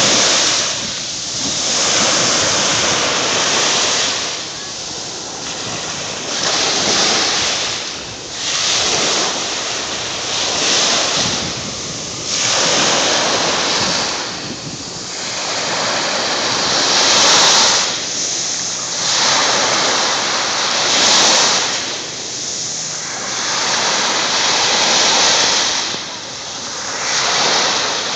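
Small waves breaking and washing up over sand at the water's edge, a steady hiss of surf and foam swelling and easing every couple of seconds.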